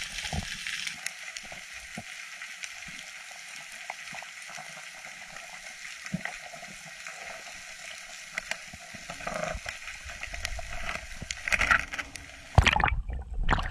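Underwater reef ambience heard through a camera housing: a steady crackling hiss scattered with short sharp clicks. About a second before the end it gives way suddenly to a louder rush of water.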